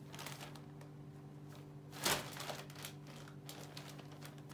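Plastic shopping bag crinkling and rustling as a tabby kitten moves around inside it, in irregular bursts, the loudest about two seconds in.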